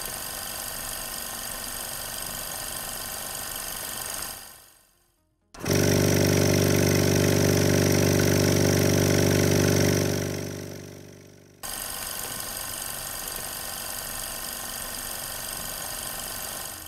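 Gast twin-head piston compressor running steadily in three takes. First it runs at moderate loudness with a Gast Sound Shield silencer on its outlet, then fades out. About five and a half seconds in it runs much louder with a deeper hum through a standard Gast muffler outlet. Near the end, after a fade, it runs quieter again with the Sound Shield fitted.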